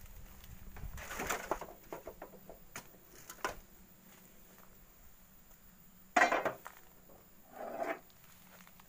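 A long metal bar knocking and scraping against oil palm fruit bunches in a wheelbarrow, a few sharp taps. About six seconds in comes a short loud call, the loudest sound, and a second, fainter call follows about a second and a half later.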